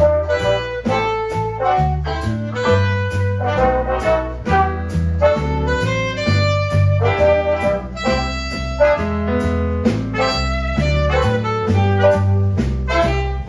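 Live band playing a jazz number: trumpets, trombone and saxophone over drums and a stepping bass line, with a steady beat.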